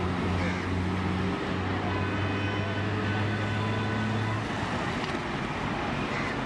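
Busy road traffic: a constant hum of passing vehicles, with the low, steady engine hum of a heavy vehicle that stops a little past the halfway point.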